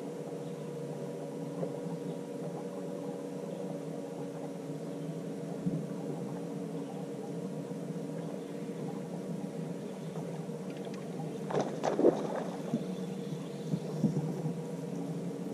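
Steady hum of a bass boat's electric motor, most likely the bow trolling motor holding position, while a smallmouth bass is hooked and fought; a few short sharp splashes or clatters come about two-thirds of the way through.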